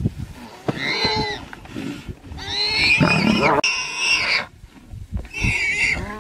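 Loud, high-pitched squealing cries, about four in a row, with a low growl underneath, from a lioness, a spotted hyena and the warthog they are pulling between them.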